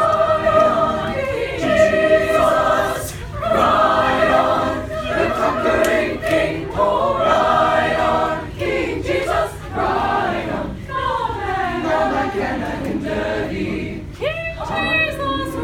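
A choir singing a cappella: several voices in harmony, holding sustained notes with short breaks between phrases.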